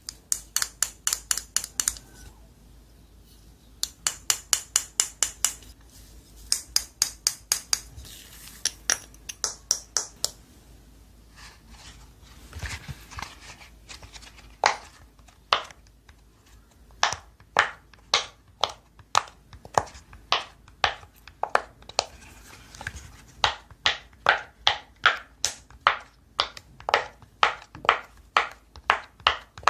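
Slime being pressed and poked, making runs of sharp, wet clicks and pops: quick runs of about five a second early on, then a steadier pace of about two a second through the second half.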